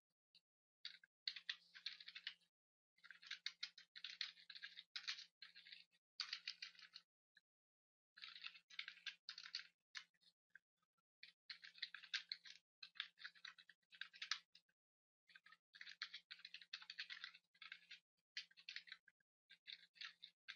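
Faint computer keyboard typing: quick bursts of keystrokes broken by short pauses.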